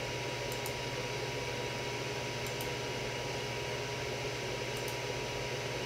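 Creality CR-10S 3D printer's hotend cooling fan running steadily: a noisy, constant whir with a low hum. A few faint, paired high ticks come through it.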